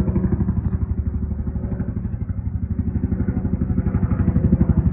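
An engine running steadily, a loud low rumble with a fast, even pulse.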